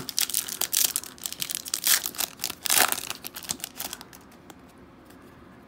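Foil wrapper of a Panini Illusions football card pack crinkling and tearing open in the hands, a dense crackle that dies away about four seconds in.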